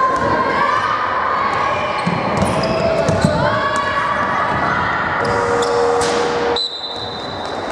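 Basketballs bouncing on a gym floor, with voices in an echoing sports hall. About two-thirds of the way through, the hall noise drops away and a thin steady high tone remains.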